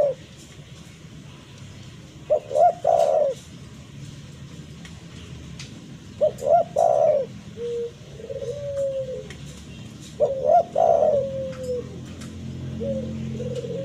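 Spotted dove cooing: three phrases about four seconds apart, each a few short notes running into a longer falling note.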